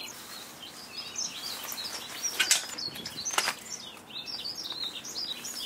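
Small birds chirping over a faint steady hiss of wet weather, with two sharp knocks about two and a half and three and a half seconds in.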